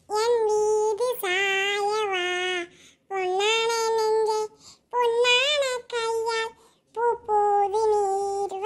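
A high child's voice singing unaccompanied in short phrases of about a second each, with brief pauses between them.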